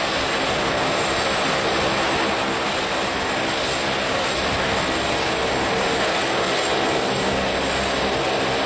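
Mil Mi-17V-5 transport helicopter taking off and climbing away, its turbines and rotor running steadily at take-off power.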